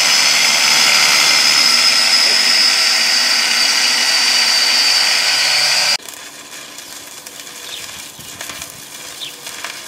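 Angle grinder with a cut-off disc slicing through steel plate: a steady high whine over dense grinding noise. It cuts off suddenly about six seconds in, and a much quieter crackling hiss of electric arc welding follows.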